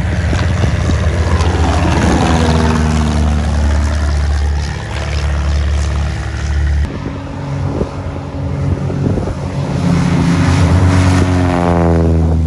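Small propeller airplane's engine droning as it passes close by, its pitch sweeping down as it goes. About seven seconds in, the sound cuts abruptly to another stretch of loud propeller-engine drone.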